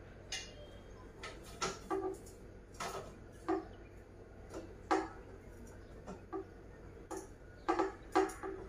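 Irregular clicks and light knocks of a steel inverter trolley's frame and shelf board being handled and fitted together, many with a brief metallic ring.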